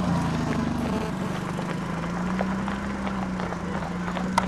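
A motor vehicle's engine running steadily at an even, slightly wavering pitch, with scattered light clicks and one sharper tick near the end.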